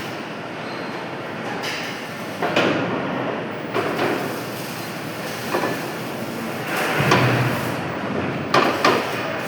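Metalworking shop noise: a steady machine din with irregular metal knocks and clanks over it.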